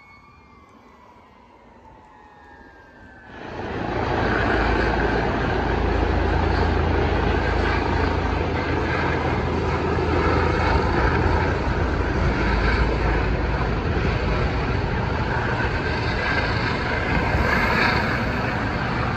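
Helicopter flying overhead, a steady loud rotor and engine noise that starts abruptly a few seconds in.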